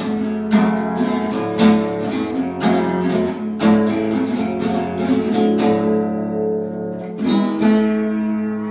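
Acoustic guitar strumming chords about once a second, pausing, then a final strummed chord a little past seven seconds in that is left to ring out and fade as the song ends.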